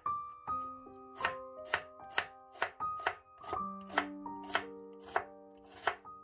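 Chef's knife slicing an onion on a wooden cutting board: the blade taps the board sharply about twice a second. Soft piano music plays underneath.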